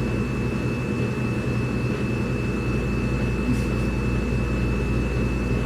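A steady low hum with a thin, high, constant whine over it, unchanging throughout.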